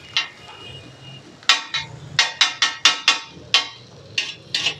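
Metal spatula clanking against a griddle in a quick run of sharp strikes, about three or four a second, starting about a second and a half in, as a burger is cooked.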